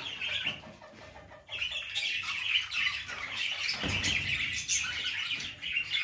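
A flock of budgerigars chattering, a dense high twittering that thins briefly about a second in, then fills back in.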